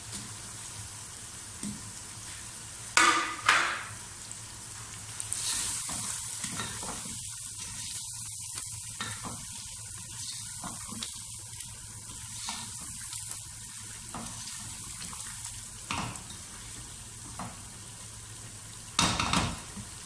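Masala frying in oil in a pot, sizzling steadily while beef koftas are set in by hand and then stirred with a spatula. A few sharp knocks stand out, two close together about three seconds in and a cluster near the end.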